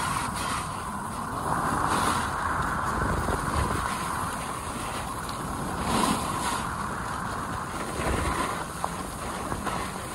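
Wind rushing over the microphone of a camera carried downhill on a ski slope, mixed with the hiss and scrape of sliding over snow; louder gusts come about two and six seconds in.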